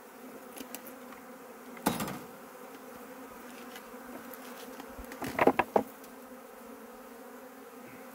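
Honeybees buzzing in flight around the hive, a steady hum. A single knock comes about two seconds in and a quick run of louder knocks around five and a half seconds.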